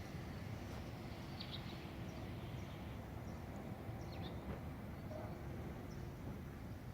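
Steady low outdoor background rumble, with a few faint short high chirps about a second and a half in and again about four seconds in.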